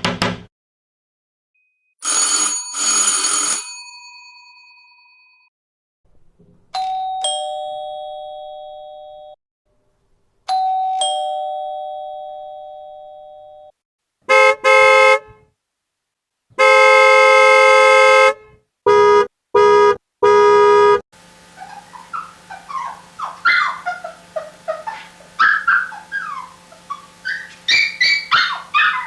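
Doorbells: three ding-dong chimes, each two notes that ring on and fade, then a buzzer doorbell pressed five times, two longer buzzes and three short ones. About two-thirds of the way in, this gives way to a dog whining and yipping over a low hum.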